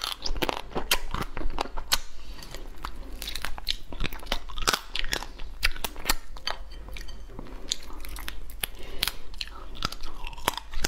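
Close-up sounds of a person eating crab: a dense, irregular run of short wet clicks and smacks of the lips and mouth as the meat is sucked and chewed from the pieces.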